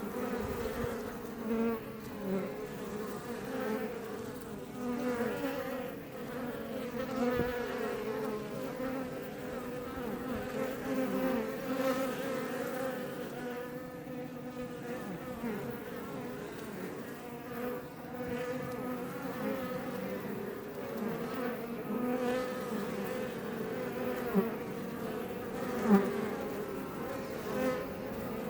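Iberian honey bees buzzing in numbers at the entrance of a Langstroth hive, a steady hum with individual bees swelling louder as they fly close past.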